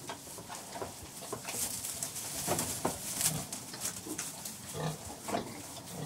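Pigs in a farrowing pen, sows with piglets, grunting again and again in short low grunts, with a steady high hiss behind them.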